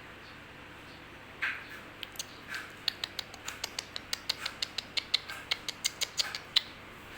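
Young kittens squeaking: two short high mews, then a quick run of thin, high-pitched squeaks, about four a second.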